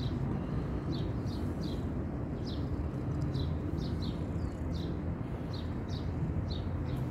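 Short high bird chirps, one or two a second at an uneven pace, over a steady low background rumble.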